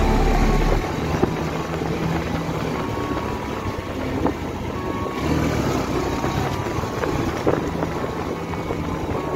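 Motorcycle engine running while riding along a street, with wind rushing on the microphone.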